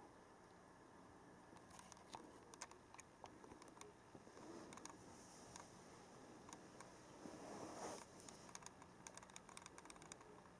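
Near silence: quiet room tone with faint scattered clicks and a brief soft rustle about seven seconds in.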